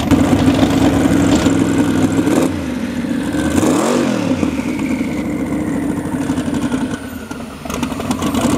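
Inboard engine of an Eliminator 21 Daytona hot boat running at idle. About halfway through its note dips, then rises and falls again in a single throttle blip.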